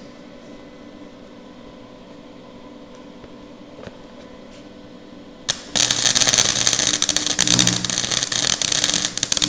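Nagano MIG 130 gasless flux-core welder arc crackling and sputtering loudly on thin sheet steel. It starts sharply about five and a half seconds in, after a stretch of steady hum. With the wire speed at 3 and the heat on minimum 1, the arc still falters: the wire feed is too slow for a steady weld.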